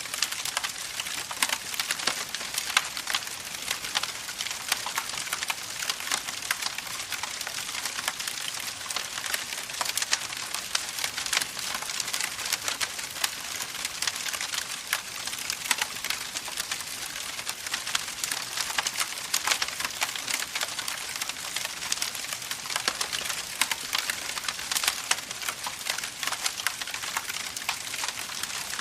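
Campfire crackling steadily, with a dense run of small sharp pops and snaps over a constant hiss.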